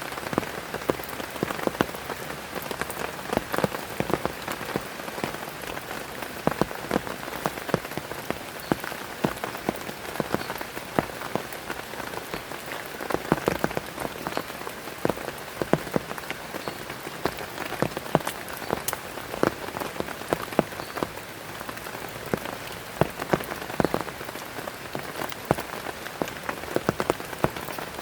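Heavy rain falling steadily, with many sharp individual drops striking a surface close by.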